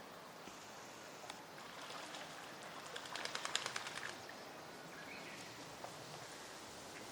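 A bird's wings flapping in a quick run of even strokes lasting about a second, three seconds in, over faint outdoor hiss.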